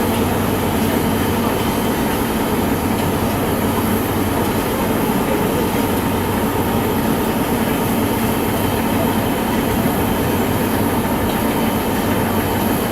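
Steam locomotive 44871, an LMS Black Five, on a railway turntable: a steady rumble and hiss with a low hum underneath.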